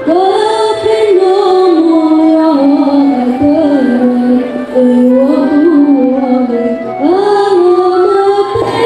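Young female voice singing a sholawat melody into a microphone, with long, ornamented held notes that slide between pitches.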